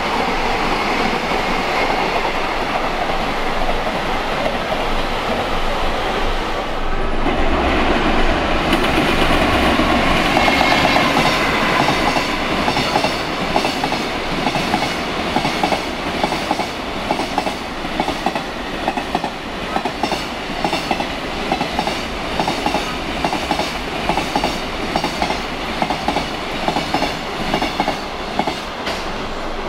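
Freight train passing through, a continuous rail rumble, with the wagons' wheels clattering over the rail joints in a regular clickety-clack from about twelve seconds in.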